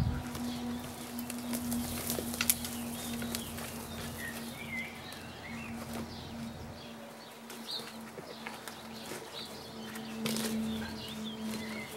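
Small birds chirping and twittering over a steady low hum, with occasional rustles and sharp snaps of weeds being pulled from soil.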